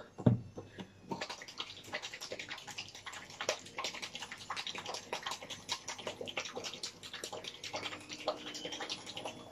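Homemade salad dressing sloshing inside a small lidded plastic pot as it is shaken, a quick irregular slosh and rattle lasting several seconds. It begins with a single knock just after the start.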